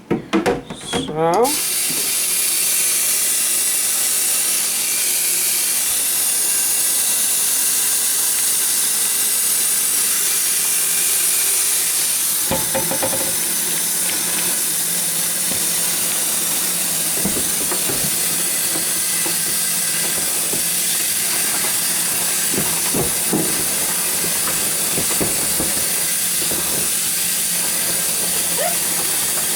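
Tap water running steadily into a sink, a continuous hiss, while refrigerator drawers and shelves are washed by hand, with a few light knocks later on.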